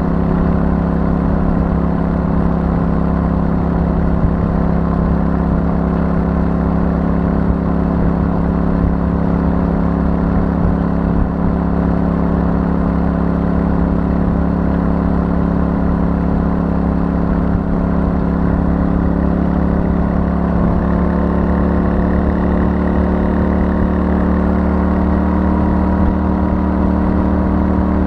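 Royal Enfield Super Meteor 650's 648 cc parallel-twin engine running through its stock exhaust, cruising at a steady speed. About two-thirds of the way through, the engine note drops slightly and then holds steady again.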